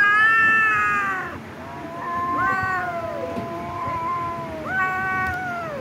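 Kittens meowing, several long high calls that fall in pitch at the end and overlap at times. The loudest comes right at the start.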